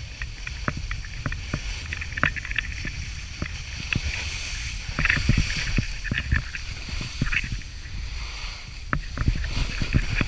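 Snowboard sliding over hard-packed snow: a steady scraping rumble, with louder hissing scrapes as the edge bites on turns and many small knocks and clicks.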